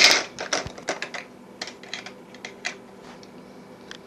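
Plastic electronics-kit parts clicking as a switch piece is snapped onto the board: a sharp snap at the start, a quick run of clicks over the next second, then a few scattered lighter clicks until near three seconds in.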